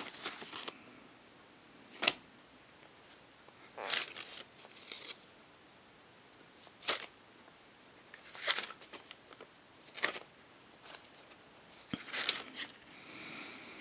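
Paper sleeves of 7-inch vinyl singles rustling and sliding against each other as records are handled and leafed through, in short scattered bursts.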